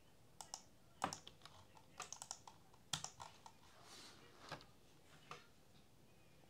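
Computer keyboard typing: faint, irregular key taps, with two louder clacks about one and three seconds in.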